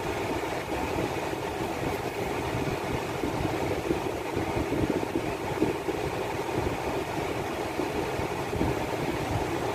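Car idling, heard from inside the cabin as a steady, even hum with no sudden sounds.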